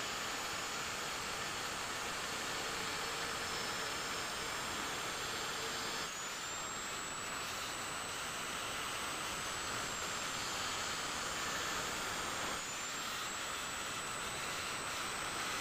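Handheld electric angle grinder grinding a steel kukri blade: a steady grinding hiss under a thin high motor whine. About six seconds in the whine rises in pitch, and it dips briefly and climbs back again near the end.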